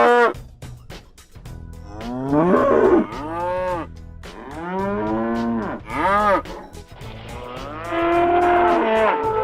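Cattle mooing: about five moos one after another, several with a pitch that arches up and then falls.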